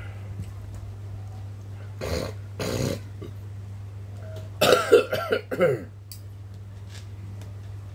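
A man coughing while eating: two short coughs about two seconds in, then a louder run of throaty coughing and throat-clearing about five seconds in, the voice falling in pitch.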